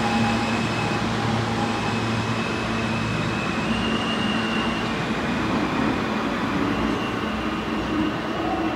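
New York subway train of the R160 type moving off along the track: a steady rumble with several humming motor tones, one stepping up in pitch about halfway through.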